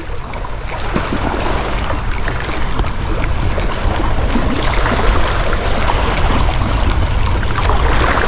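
Steady wind and water noise: wind rumbling on the microphone over waves washing, growing a little louder over the first few seconds.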